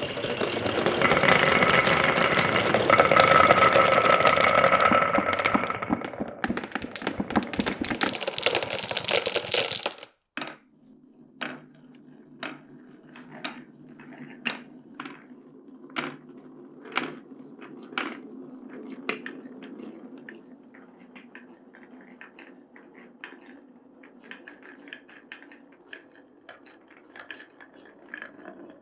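Marbles rolling and clattering along a marble run, a dense loud rush for about ten seconds that cuts off suddenly. After the cut, single marbles click and knock about once a second over a low steady hum.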